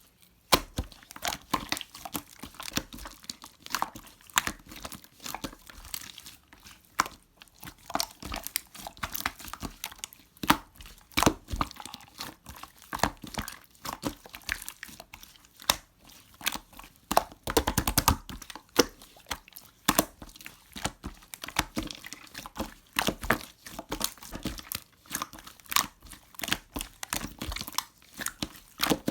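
Hands squeezing, stretching and folding slime, making irregular sticky pops, clicks and crackles, with a denser run of crackling around the middle.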